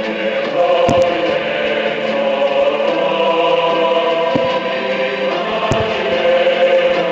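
Choral music with long held chords, loud and steady. A few faint sharp bangs, likely fireworks, break through the music.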